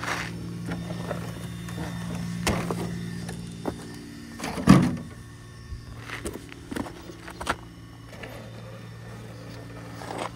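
Axial SCX6 1/6-scale RC rock crawler's electric motor and drivetrain whining steadily at crawling speed as it climbs over rocks. Scattered clicks and knocks of the truck on rock run through it, the loudest about halfway through.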